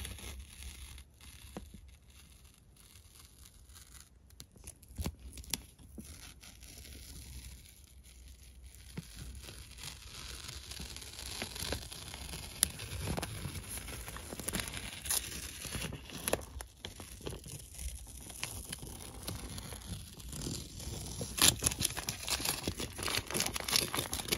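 Paper masking tape being peeled off along a freshly siliconed door-seal edge, a slow tearing and crinkling with scattered sharp crackles. It is quiet at first and grows busier from about halfway through.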